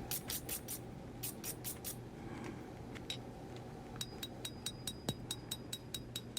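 Light forging hammer tapping a W-2 steel knife blade on an anvil, planishing out hammer marks: a few scattered taps, then a steady run of about five quick taps a second from about four seconds in, each with a faint metallic ring.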